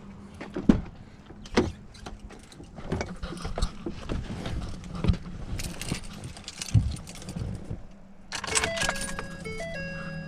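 Keys jangling with scattered clicks and knocks, then, about eight seconds in, the 2012 Ford F250's dashboard chimes start: a series of electronic beeps stepping between a few pitches.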